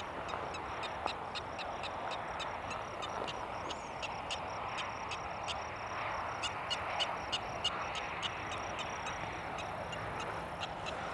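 Prairie dog calling from its burrow: a long series of short, high chirping barks, about three a second, with brief pauses between runs.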